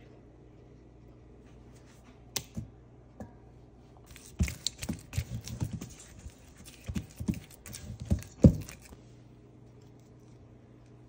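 Spatula folding thick batter in a stainless steel bowl: a run of irregular knocks and scrapes against the metal that starts about four seconds in and stops near nine seconds. A few single clicks come before it, and a low steady hum runs underneath.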